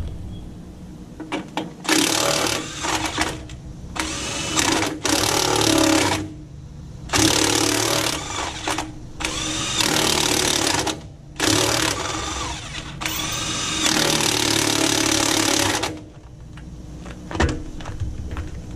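Impact wrench running a lug nut on and off in repeated bursts of one to three seconds. It drives the nut through an undersized 21 mm socket, which twists the nut's chrome cap.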